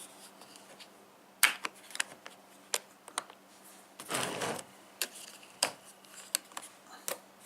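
Sharp plastic clicks and snaps from the latches of a plastic tool case being worked open, a few single clicks spread out, with a short rustle of handling about four seconds in.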